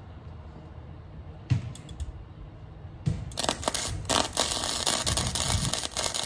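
Arc welding a metal tab onto a minibike frame: two short arc strikes about a second and a half and three seconds in, then a steady crackling arc from a little after three seconds on.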